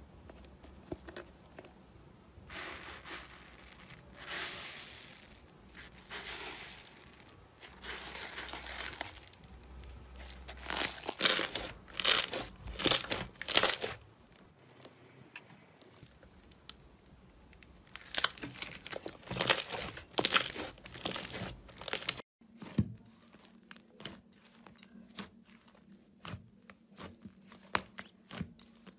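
Slime being squeezed, stretched and torn by hand, crackling and popping in bursts as trapped air squishes out. Near the end this changes to a run of small sharp clicks as a soft, fluffy slime is pressed.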